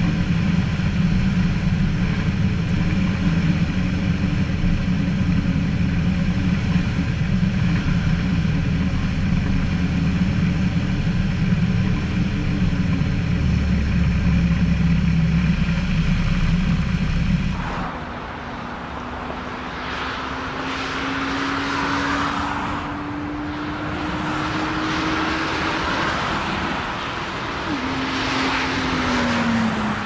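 Ikarus C42B ultralight's piston engine and propeller running steadily, heard close on board during a crosswind landing. It cuts off suddenly after about 17 seconds, replaced by a quieter jet airliner on approach heard from the ground: a faint engine tone slowly rising in pitch, dropping near the end, with gusts of wind on the microphone.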